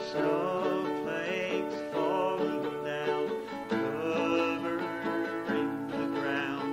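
Acoustic string band music: a lead guitar melody over rhythm guitar and ukulele, in a country style.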